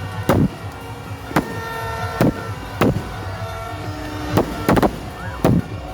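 Aerial fireworks going off: about seven sharp bangs at uneven intervals, some close together, over a low steady rumble.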